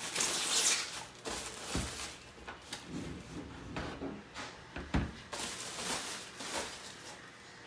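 Cardboard and plastic packaging handled as a small coffee maker is turned over and lifted out of its box. A scraping rustle comes in the first second, then several dull knocks and bumps, the clearest about two and five seconds in.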